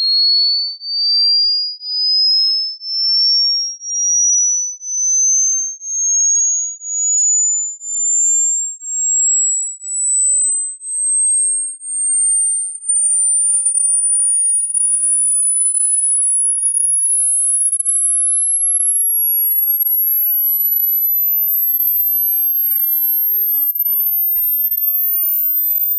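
Pure sine test tone sweeping slowly and steadily upward from a high whistle to a very high, thin whine. It is an age-hearing test tone: the point where it seems to vanish marks the upper limit of the listener's hearing.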